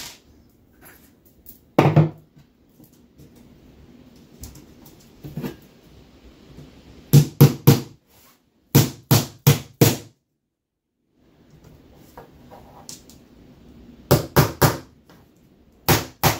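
Hammer tapping pins through the base plate of an aluminium Zee Bar carpet trim into the floor, in quick runs of three or four blows about four a second, with pauses between the runs.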